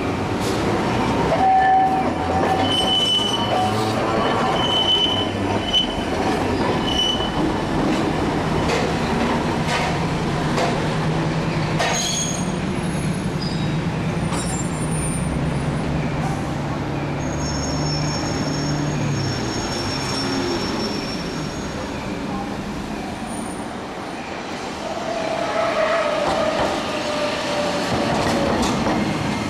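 Trams on a street track: an older tram moving off with short, high wheel squeals over a low hum. Near the end a modern low-floor Iyotetsu 2100-series tram pulls in with a falling whine.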